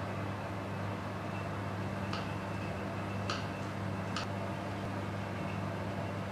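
Steady low electrical hum, with three short clicks of a knife touching the plate as it cuts down through a stack of pancakes.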